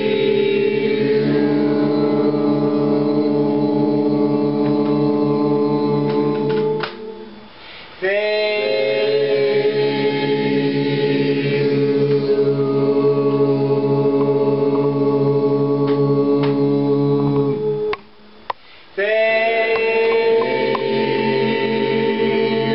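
Voices chanting a long, drawn-out mantra syllable, the word Vril, each note held for many seconds. The chant breaks off twice for breath, about seven and eighteen seconds in, and each time starts again with a rising slide into the held tone.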